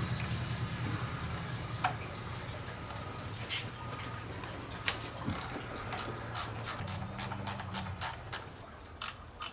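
Ratchet wrench clicking as 10 mm nuts are backed off a coolant line at the thermostat housing. The clicking comes in a quick, even run of about four clicks a second over the second half, over a low steady hum.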